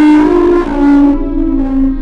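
A melody of held notes stepping up and down in pitch, first in a buzzy, horn-like tone, then in cleaner synthesizer-like notes from about a second in.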